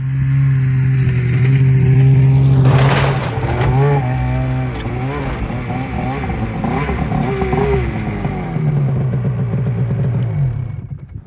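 Polaris AXYS snowmobile's two-stroke engine under throttle as the sled climbs a ramp onto a pickup's sled deck. It runs strongly at first, then rises and falls in speed, and drops away near the end as the throttle is let off.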